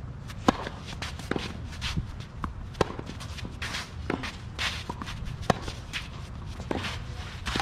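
Singles tennis rally: racket strokes on the ball come about every second and a half, with players' footsteps and shoe scuffs on the court between them.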